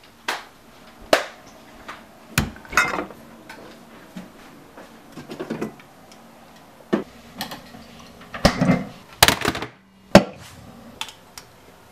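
A series of separate household knocks and clunks: a refrigerator door opened and a drink can taken out, then the can handled and set down on a granite countertop, with a sharp knock near the end.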